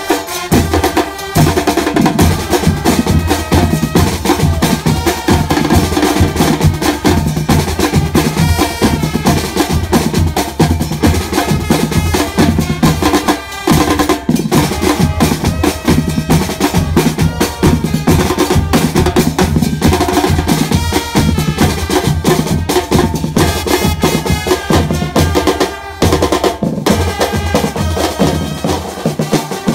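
A drum line of marching bass drums and snare drums played together in a fast, driving rhythm, with short breaks about thirteen and twenty-six seconds in.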